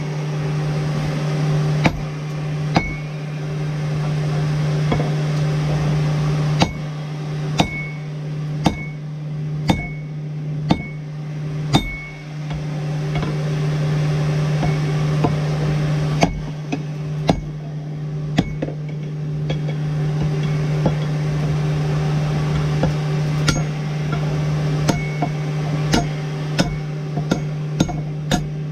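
Blacksmith's hammer striking hot steel on an anvil while forging a wrench into a tomahawk head, blows about a second apart in runs with short pauses between, some with a brief ring. A steady low hum runs underneath.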